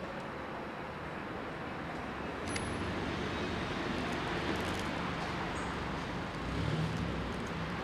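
Steady road traffic noise from a city street, a wash of passing cars that grows a little louder about three seconds in, with a low rumble swelling briefly near the end.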